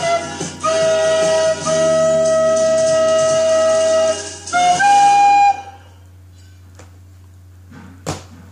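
Plastic recorder playing the closing phrase of a melody: a couple of short notes, one long held note of about two and a half seconds, then a final higher note that stops about five and a half seconds in. A few faint knocks follow near the end.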